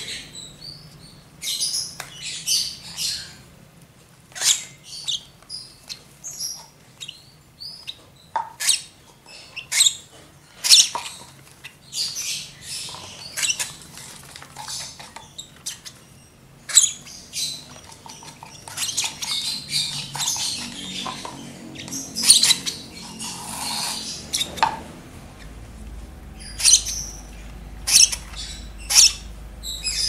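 Young lovebird chicks, about a month old, giving short, high-pitched chirps and squawks, in irregular clusters of quick calls.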